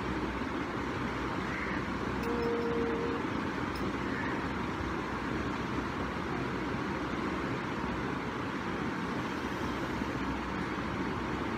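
Steady background noise with a short steady tone a little over two seconds in.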